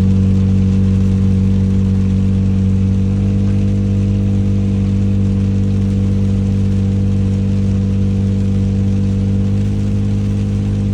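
A steady low engine hum, its pitch stepping up slightly about three seconds in.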